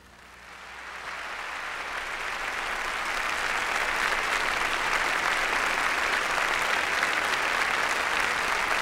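Audience applauding, the clapping building up over the first few seconds and then holding steady.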